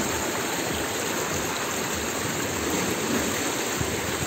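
Steady rush of water streaming down open water slides.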